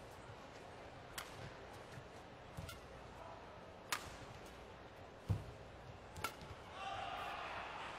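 Badminton rally: sharp cracks of rackets striking the shuttlecock about every second and a half, with dull thumps of the players' feet landing on the court mat. Background noise swells near the end.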